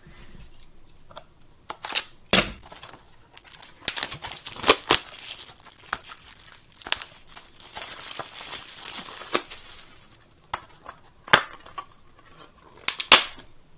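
Clear plastic shrink wrap being torn and crinkled off a plastic Blu-ray case, with scattered crackles and clicks. Near the end the case's plastic clasps give a few sharp snaps as it is pried open.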